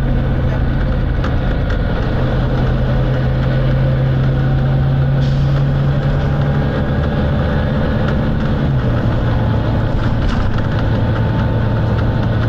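Volvo B9TL bus's six-cylinder diesel engine running under way, heard on board. Its note holds steady, then drops in pitch about nine seconds in.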